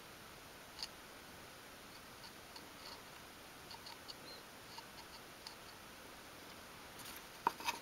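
Faint light ticks and taps of a thin wooden stick spreading glue along the edge of a small wooden box held in the hand.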